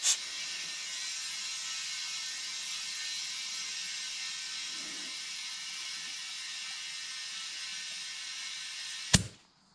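Compressed air hissing steadily through an air chuck on the valve stem into a lawn tractor tire, inflating it from about 5 PSI toward 10. It stops with a sharp click near the end.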